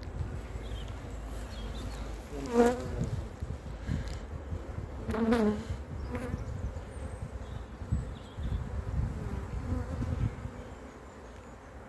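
Honeybees buzzing around an open hive, with single bees flying close past the microphone, loudest as two rising-and-falling buzzes about two and a half and five seconds in.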